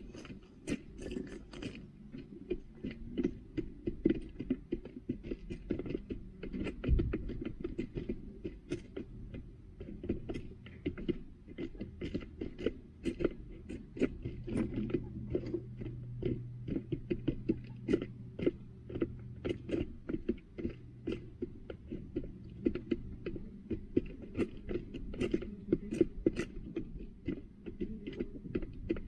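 Hens pecking feed at close range, their beaks tapping rapidly and irregularly on a plastic feeder tray and in the litter, several sharp taps a second with the odd louder one.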